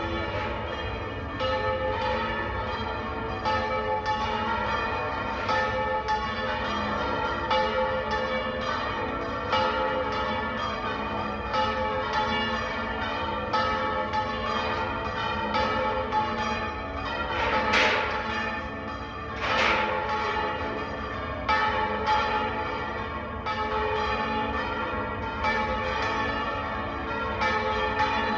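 Málaga Cathedral's bells pealing: several bells struck in quick, steady succession, their tones ringing on into one another. Two louder, sharper clangs come about two-thirds of the way through.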